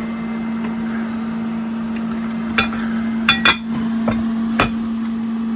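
Microwave-safe casserole dish and its lid knocking and clinking as they are handled: four sharp knocks, two of them close together, over a steady low hum.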